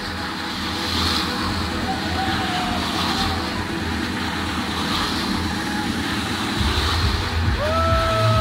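Subaru car spinning donuts on asphalt: the engine held at high revs with the driven tyres spinning and smoking, the tyre noise swelling and fading about every two seconds as the car circles. The engine gets louder near the end, and a held squeal of about a second rises in and falls away.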